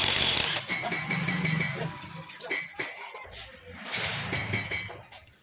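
Cordless impact wrench running briefly on the flywheel (magneto rotor) nut of a Bajaj Platina 100cc engine, followed by clinks of metal tools, with another short noisy burst about four seconds in.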